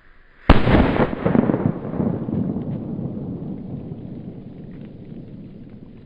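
Pyroco Mega Petarda firecracker going off with one loud bang about half a second in, after a faint fuse hiss; a long rumble follows and dies away over about five seconds.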